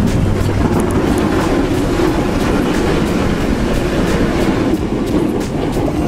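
Ford F-250 pickup with a front Boss snow plow, engine running steadily as it pushes snow, with a continuous rumbling, clattering scrape from the blade riding over the snow-covered pavement.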